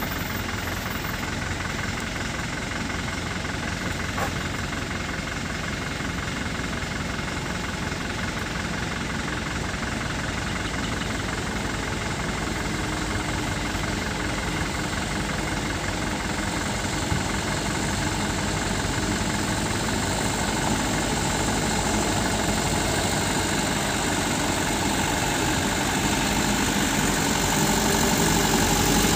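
Diesel engines of sand-laden light dump trucks running as they come down a dirt road, with a steady diesel clatter, getting louder towards the end as the next truck approaches.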